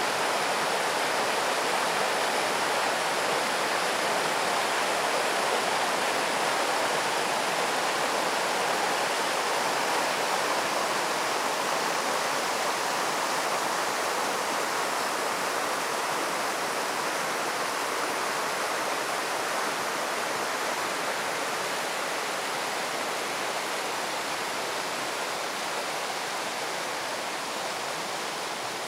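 Shallow river rushing over rocks, a steady rush of water that slowly grows fainter over the second half.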